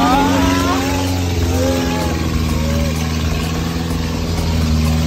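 Truck engine running steadily as the truck drives, heard from its open metal cargo bed.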